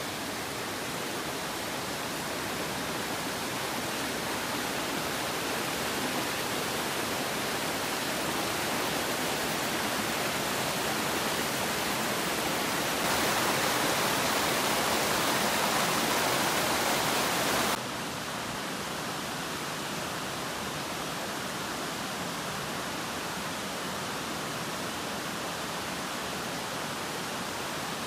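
Waterfall and mountain stream rushing over boulders, a steady rush of water. It steps up suddenly about halfway through for about five seconds, where the water cascades close by, then drops back just as suddenly.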